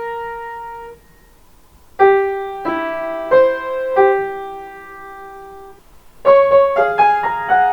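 Piano playing a Japanese train's onboard chime melody by ear. A held note rings out and stops about a second in, a short phrase of several notes follows from about two seconds, and a quicker run of notes starts near the end.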